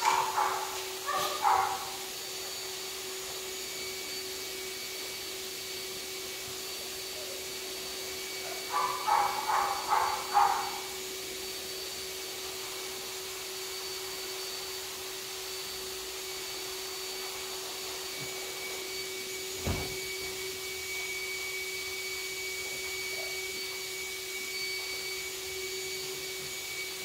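Steady hum and whoosh of an electric motor, like a fan or blower. Two short bursts of a voice stand out, one near the start and one about nine seconds in, and there is a single low thump at about twenty seconds.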